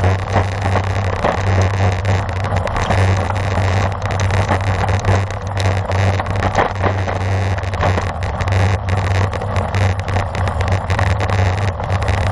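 Wind rushing over the microphone of a camera on a road bike moving at speed, with the tyres' road noise: a steady low rumble under an even hiss, with frequent small crackles.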